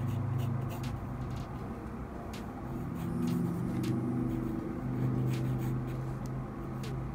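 Pencil strokes scratching on sketchbook paper in short bursts, over a steady low hum.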